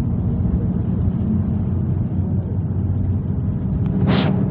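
Bus engine running steadily at road speed, a low drone heard from inside the cabin. A short hiss about four seconds in.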